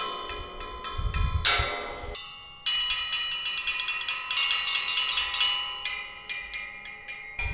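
Rusty welded-steel musical sculptures struck with a beater: ringing metallic clangs at several pitches. A few single strikes come first, then a quick run of strikes starts between two and three seconds in.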